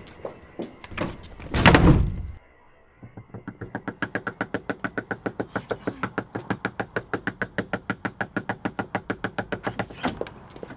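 A loud thud about two seconds in, then rapid, frantic knocking on a front door, about eight knocks a second for some seven seconds, ending with one harder knock.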